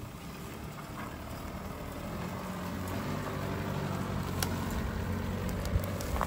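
Engine of a four-wheel-drive dual-cab ute running at low revs as it crawls down a grassy slope, growing steadily louder as it comes closer, with a few sharp clicks and knocks from the vehicle moving over the rough ground.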